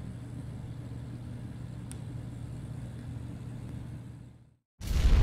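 Steady low room hum with a faint click about two seconds in; the hum fades out, and near the end a loud boom-like outro sound effect begins.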